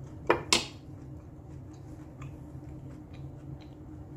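A metal fork set down on a wooden board: two sharp clicks about a third and half a second in, then a few faint small clicks.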